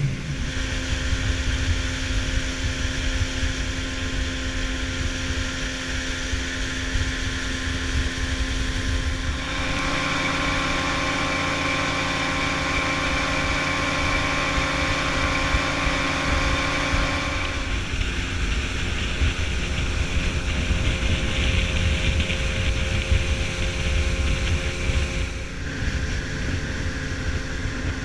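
Evinrude 200 outboard motor running at planing speed: a steady engine whine over wind buffeting the microphone and the rush of water from the wake. The engine note switches to a different pitch about nine seconds in, again about eighteen seconds in, and near the end.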